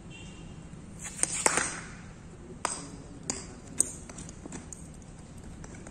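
Cricket bat and ball knocking on a concrete practice pitch: a few sharp knocks, the loudest about a second and a half in with a short rustle after it, then three more single knocks over the next couple of seconds.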